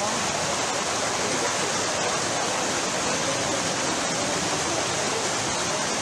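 Muddy floodwater from streams overflowing after heavy rain, rushing steadily across a road in a continuous roar of water.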